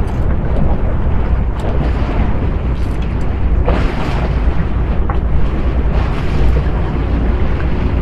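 Wind buffeting the microphone: a steady low rumble, with a brief louder hissing rush about four seconds in.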